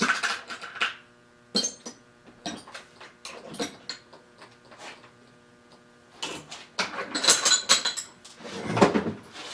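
Metal hand tools clinking and clattering off-camera in a string of sharp knocks, thickest near the end, over a faint steady hum.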